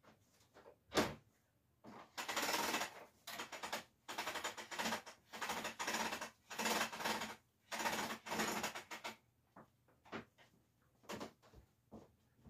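A single thump about a second in, then a series of rustling, swishing bursts of handling noise as a white electrical cord is unwound and handled, followed by a few small knocks near the end.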